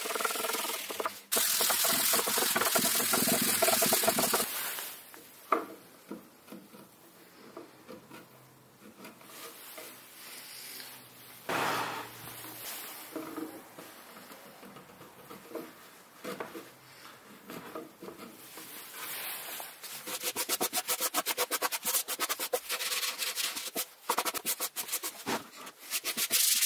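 Hand sanding of Baltic birch plywood edges: steady abrasive strokes for the first few seconds, quieter light chisel paring and scraping in the middle, then quick back-and-forth rubbing strokes over the last several seconds.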